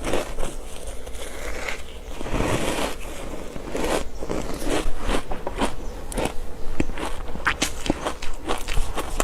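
Pieces of ice coated in matcha powder being bitten and chewed, a run of sharp cracks and crunches, thicker toward the end.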